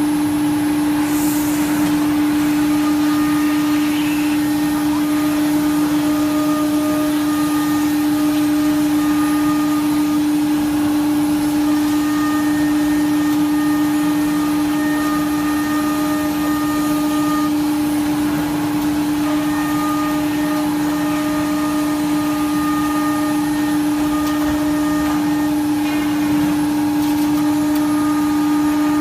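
CNC router spindle running steadily at high speed while routing grooves into an MDF board, a constant high hum over the rush of dust extraction. Fainter higher whines switch on and off every few seconds.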